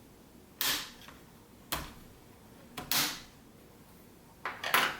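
The plastic snap clips of an Acer Aspire V3-572's screen bezel popping loose as a prying tool works along the bottom edge. There are several sharp snaps, roughly one a second, the last two close together near the end.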